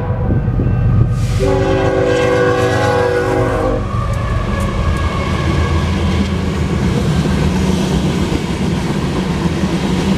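A GE ES44AC freight locomotive's horn sounds a chord that breaks off briefly, then one long blast from about a second in that stops near four seconds. After it, the loaded grain train rolls through the grade crossing, a steady loud rumble of the locomotive and covered hopper cars passing close by.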